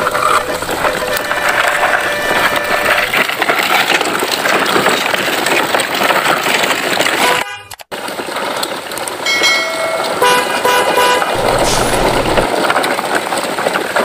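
Added-in truck sound effects: continuous vehicle noise with a run of short horn toots after about nine seconds. The sound cuts out abruptly for a moment about halfway through.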